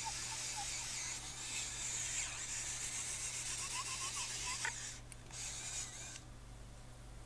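Electric drill with a 16 mm bit boring diagonally down through a timber fence post and rail. The motor runs steadily, stops about five seconds in, runs again briefly, then stops.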